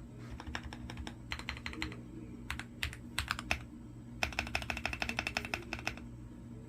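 Typing on an Akko MOD007 v2 mechanical keyboard with Akko CS Silver linear switches and World Tour Tokyo keycaps: short bursts of keystrokes, then a longer fast run of rapid keypresses that stops about a second before the end.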